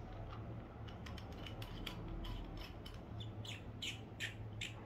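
Metal sections of a GeekVape Zeus sub-ohm vape tank being turned and screwed together by hand: a run of small clicks and thread scrapes, coming thicker and sharper in the last couple of seconds.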